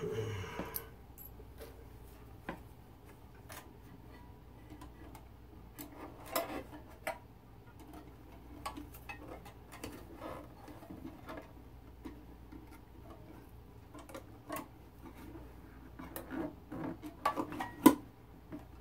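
Scattered light clicks, taps and knocks as a record changer is lowered onto its mounting springs and shifted into place in a Bakelite radio cabinet, with a denser run of louder knocks near the end.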